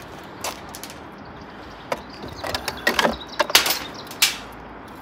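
Small metal pieces, old bullets among them, clicking and scraping against a magnet-fishing magnet as they are picked off it. There are a few scattered clicks, then a quick run of clicks and scrapes about halfway through, and one more sharp click near the end.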